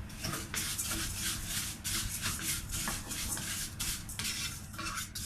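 Vermicelli being stirred and scraped around a cooking pot as it toasts golden, in quick repeated strokes, a few a second.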